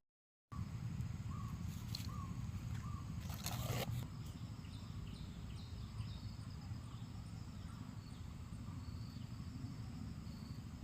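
Rural outdoor ambience: a steady low rumble with faint bird and insect chirps, a brief rush of noise about three and a half seconds in, then a run of short, high, repeated chirps.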